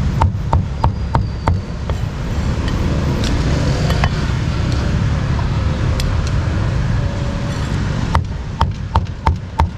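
Cleaver chopping meat on a chopping block in sharp, ringing knocks about three a second: a short run at the start, then a steady run again near the end. Steady street traffic noise runs underneath.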